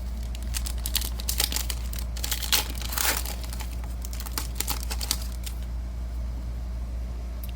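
Foil trading-card pack wrapper crinkling and crackling as hockey cards are handled, in a run of sharp crackles that thins out after about five seconds, over a steady low hum.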